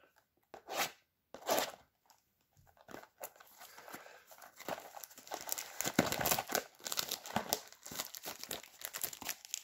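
A foil trading-card pack wrapper being handled and torn open: two brief rustles near the start, then from about three seconds in a steady run of crinkling and tearing.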